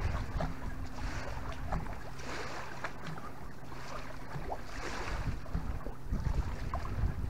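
Small waves lapping at the shore in rhythmic swells about once a second, with wind buffeting the microphone near the end and a faint steady low hum underneath.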